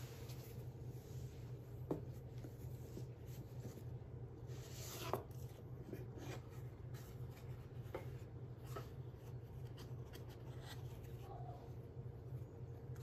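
Gloved hands handling a cardboard gift box on a glass tabletop: soft rubbing and sliding with a few light knocks, the sharpest about two and five seconds in, over a steady low hum.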